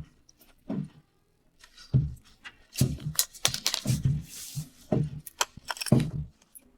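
A run of irregular dull knocks, each with a bright click or clink on top, about a dozen over several seconds, with a short hiss a little after the middle.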